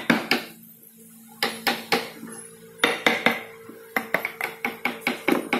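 Wooden mallet tapping a wood-carving chisel into a hardwood relief panel: short sharp knocks, a brief pause early on, then quicker strikes settling into about three taps a second in the second half.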